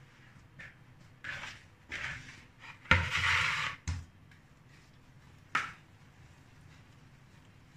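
Hands working soft dough in a plastic bowl, with short rubbing and squishing sounds. About three seconds in comes a loud thump and a brief scraping rush as the dough is turned out of the bowl onto the granite counter, with a second thud just after and one sharp knock a couple of seconds later.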